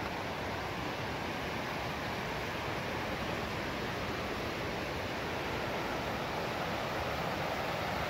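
Steady rushing of a fast-flowing whitewater river, with no breaks or distinct events, growing a little louder near the end.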